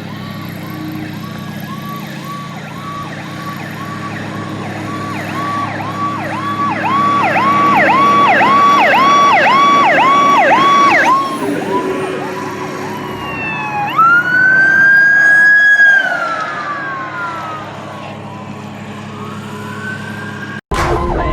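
Fire engine siren in a fast yelp, about two sweeps a second, growing louder. It then switches to a wail that rises, holds and slowly falls away, over the steady running of a large engine.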